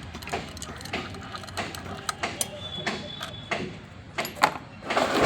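Scattered metallic clicks and knocks of tools and parts being handled while a truck gearbox is dismantled, with a brief metallic ring about three seconds in.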